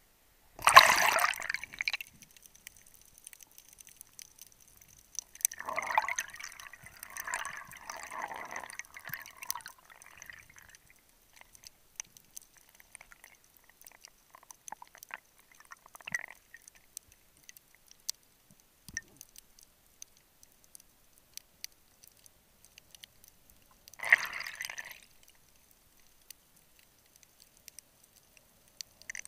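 Sea water splashing over an action camera as it goes under, then the muffled underwater sound of a dive: bursts of bubbling about a second in, from about six to ten seconds, and again near the end, with faint scattered clicks between.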